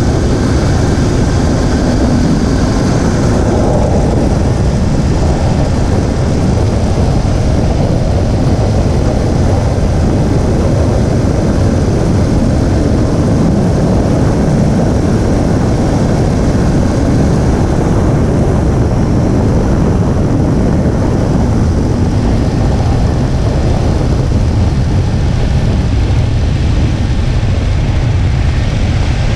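Steady road and engine noise from a 2017 Infiniti Q50 with the VR30 twin-turbo V6 being driven. It is a loud, even rumble with no distinct belt squeal standing out.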